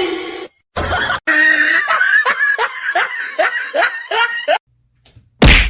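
A person laughing in a quick run of short pitched bursts, about four a second, then a loud short burst near the end.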